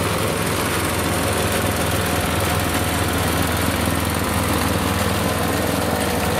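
Small engine of a diesel-outline miniature railway locomotive running with a steady low hum as it hauls a carriage of passengers past.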